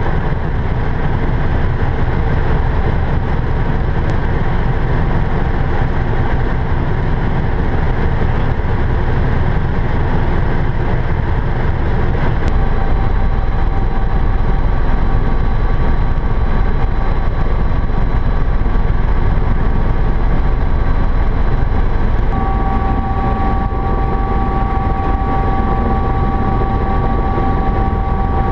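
Helicopter cabin noise in flight: a steady, loud rotor and engine rumble with a thin steady whine that grows stronger about twenty-two seconds in.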